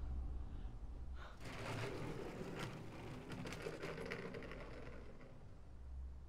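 A steady low rumble, with a dense crackling rustle that starts about a second in and dies away about five seconds in.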